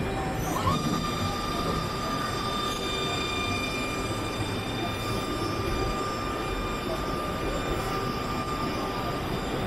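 Steady din of a machinery exhibition hall: a low rumble and hiss, with a steady high whine that comes in with a short upward glide about half a second in and holds until shortly before the end.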